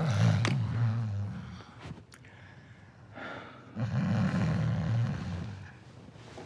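A pregnant woman snoring, deep rough snores: one long snore at the start, a short breath about three seconds in, then another long snore.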